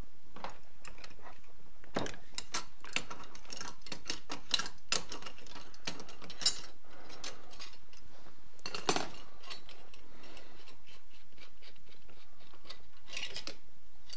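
Irregular metal clicks and clinks of an adjustable wrench working the diffuser and trigger guard off a Titan LX80 airless spray gun clamped in a vise. The clicks come thickest in the first half, with a last cluster of knocks after about nine seconds.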